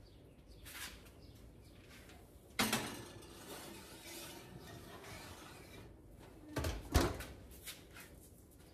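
A glass baking dish set onto a metal oven rack with a clunk, followed by some rattling, then the oven door pushed shut with a heavy thud and a sharp clack near the end.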